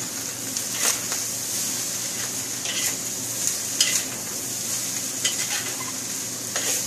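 Hokkien noodles with chicken and vegetables sizzling in a hot wok as they are stir-fried. A few sharp scrapes and knocks sound as the spatula and chopsticks strike the wok while tossing.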